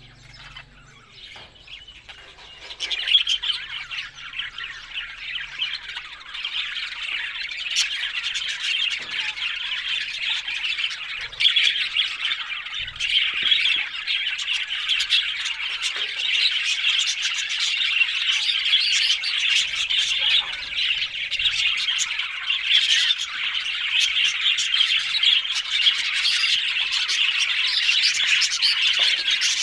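Budgerigars chattering and squawking: faint for the first few seconds, then a dense, continuous chatter of high chirps.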